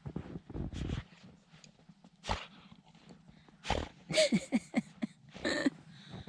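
Dog playing in deep snow, giving a quick run of short yips and then a sharper bark from about four seconds in, after some scattered crunching in the snow.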